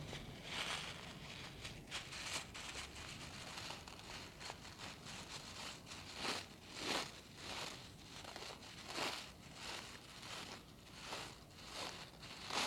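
Close-up ASMR handling of a mini microphone: soft crinkly rustling and scratching sounds that come in uneven swells about every one to two seconds.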